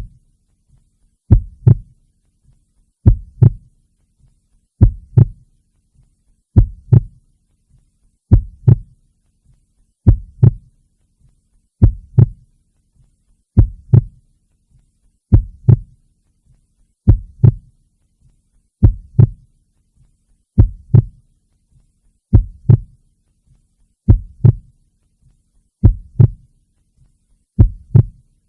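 Recorded heartbeat, each beat a double lub-dub thump, repeating slow and even at about one beat every one and three-quarter seconds.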